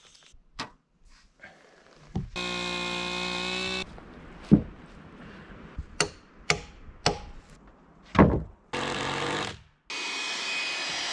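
A power tool running in two short bursts, the first about two seconds in and the second near the end, with a string of sharp knocks and thunks of wood between them.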